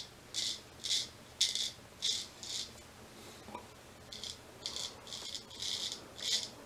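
Straight razor scraping beard stubble through thick lather: a run of short, raspy strokes about two a second, a brief pause past the middle, then another run of strokes.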